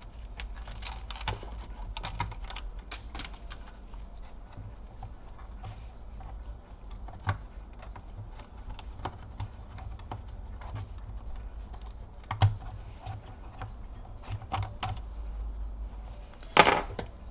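Scattered small clicks and taps of hands working on an HP Compaq 6830S laptop, disconnecting its internal cables and handling its plastic parts, with a louder clatter near the end, over a steady low hum.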